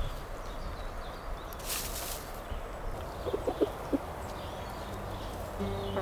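Outdoor ambience with a steady low background rumble and a few short bird calls just past the middle. Music starts near the end.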